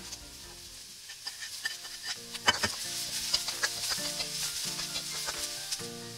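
Sliced onions, garlic and chilies sizzling in hot oil in a wok while a metal spatula stirs and scrapes them. Sharp clinks of the spatula against the pan come throughout, the loudest about two and a half seconds in.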